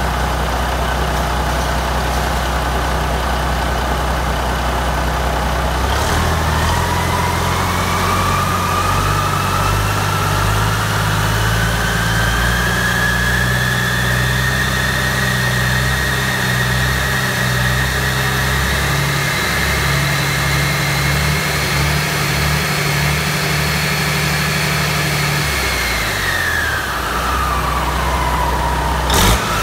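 Caterpillar 3406B inline-six turbo-diesel engine idling, then revved up about six seconds in and held at high rpm for about twenty seconds. Its turbocharger whine rises and stays high, then falls away as the engine drops back toward idle near the end.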